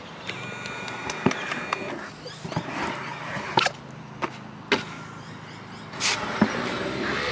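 A stunt scooter rolling on concrete, its wheels making a steady rolling noise, with sharp clacks from hops, landings and strikes on a metal rail every second or so.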